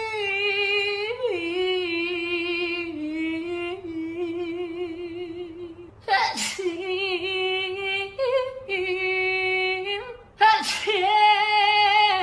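A woman's voice singing long, wavering held notes without words and without instruments, with two short breaks, about six seconds in and again near the end.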